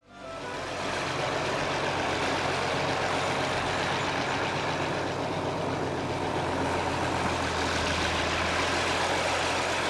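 A farm tractor's diesel engine running at a steady pitch as the tractor drives over grass, fading in over the first half second.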